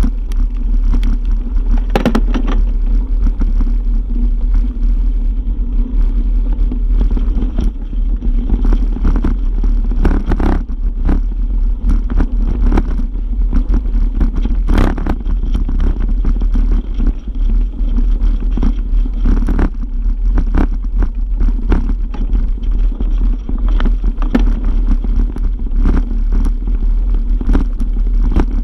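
Mountain bike rolling over a rocky gravel trail, picked up by a handlebar-mounted camera: a loud, steady rumble of tyre and frame vibration with frequent sharp clicks and knocks as the wheels hit stones and parts rattle.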